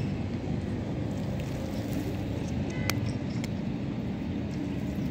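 A steady low rumble, with a few faint clicks of a cat chewing dry kibble. The sharpest click comes about three seconds in.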